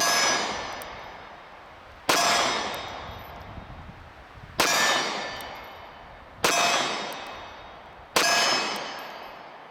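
Five slow aimed shots from a 9mm SIG Sauer P365 pistol, about two seconds apart. Each one sets a steel target clanging and ringing out for well over a second, showing a hit.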